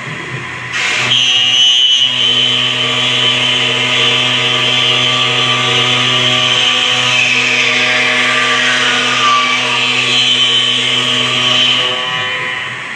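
CNC router spindle cutting wood: a steady motor hum underneath, with a louder cutting noise and high whine starting about a second in and easing off near the end. The whine's pitch sags and then recovers midway as the load on the bit changes.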